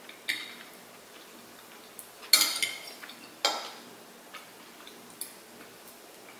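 Spoons and forks clinking and scraping on ceramic dinner plates during a meal: a scattering of sharp clicks, the loudest about two and a half seconds in.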